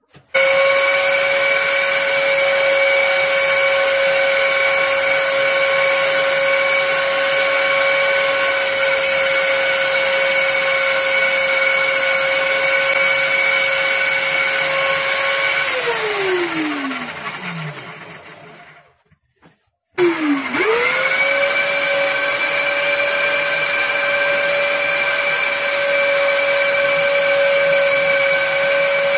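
Electric drill running at a steady speed, spinning a circular saw's armature while sandpaper is held to the commutator for fine sanding. About 16 s in it winds down to a stop with falling pitch, then starts again a few seconds later and spins back up to speed.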